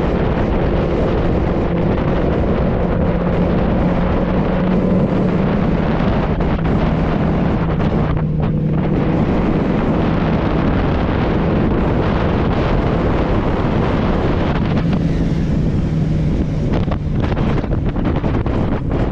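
Benelli 600i inline-four motorcycle engine running at a steady cruise, its note holding nearly level with small shifts in pitch, under heavy wind rush on a helmet-mounted microphone.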